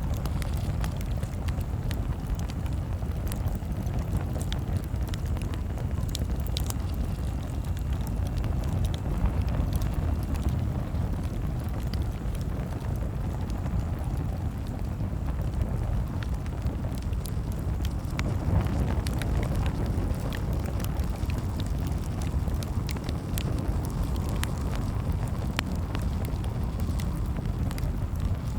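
Campfire crackling: scattered sharp pops and snaps over a steady low rumble of burning.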